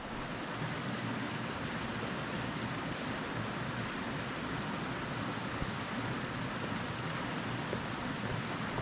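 River water rushing, a steady, unbroken noise.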